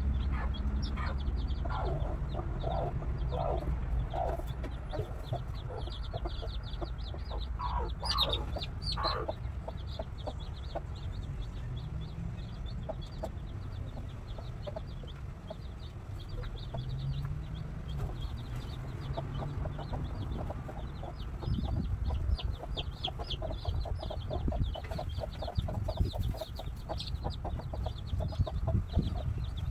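Hens clucking in a coop, with a few louder clucks about eight seconds in, over the constant rapid high-pitched peeping of young chicks.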